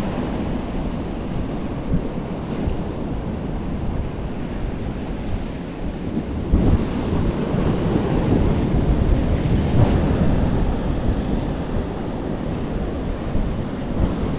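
Sea waves washing and breaking against the rocks of a breakwater, with wind buffeting the microphone. Two louder surges come partway through.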